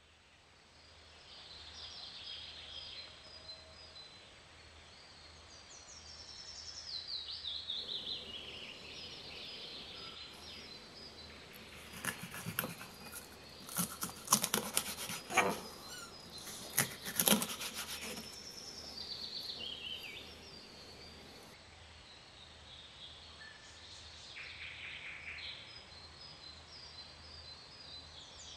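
Birds chirping and trilling in the background, in short descending runs. In the middle comes a series of sharp knocks and cracks: a kitchen knife cutting through a zander's backbone and striking the wooden cutting board.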